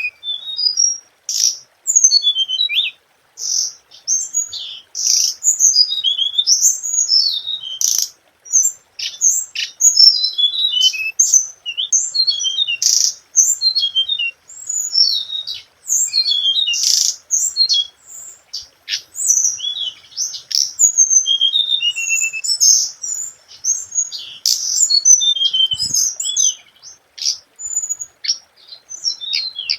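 Hồng hạnh songbird singing a fast, continuous string of short, high chirps and trills with brief pauses. This is the standard lure song (hồng hạnh mồi) that is played to draw in or stir up other hồng hạnh.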